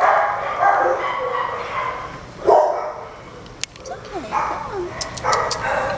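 Dogs in shelter kennels barking and yipping, a run of short barks of half a second to a second each, with a few sharp clicks in the second half.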